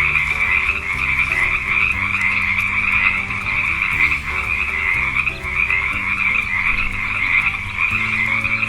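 Frogs croaking, a dense continuous chorus with no pauses, over light background music.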